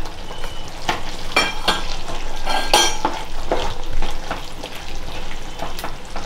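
A spatula stirring fried paneer cubes into thick matar paneer gravy in a kadhai: irregular scrapes and taps of the spatula against the pan over a low sizzle of the simmering gravy.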